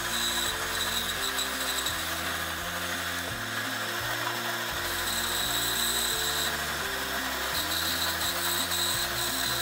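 Band saw running and cutting through a thick block of wood, over background music with a bass line.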